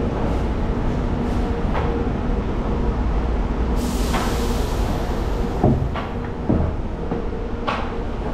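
SRT high-speed train (KTX-Sancheon) standing at a station platform: a steady electrical hum over a noisy rumble, with a hiss of air about four seconds in and a couple of knocks shortly after.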